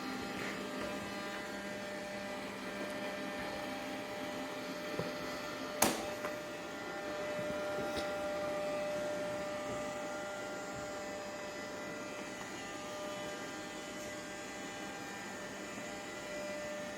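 Roomba robot vacuum running with a steady whirring hum, with one sharp knock about six seconds in.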